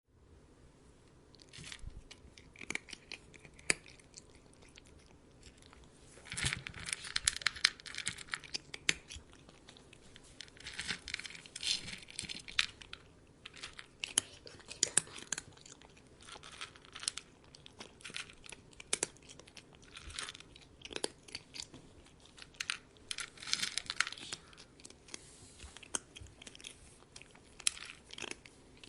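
A cat chewing and crunching its food, in bouts of a second or two of crisp crunches with single bites and clicks in between.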